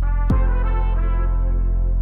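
Background music of held, sustained chords, with one deep drum hit whose boom falls in pitch about a third of a second in.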